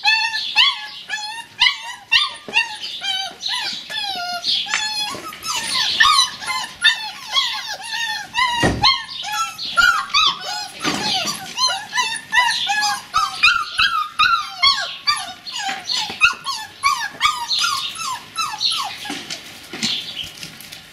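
Border Collie puppies whining and yipping, an unbroken run of short, high cries several times a second: a puppy throwing a fit at being kept back by the gate. One thud about nine seconds in.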